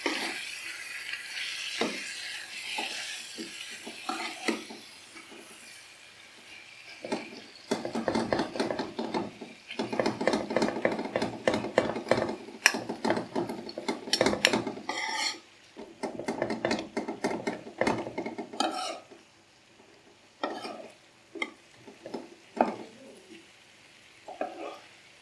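Chicken and masala sizzling in a thin tawa-style karahi while being stirred, a spatula scraping and knocking against the metal pan. A steady hiss at first, then a long stretch of busy scraping and clatter, thinning to a few separate knocks near the end.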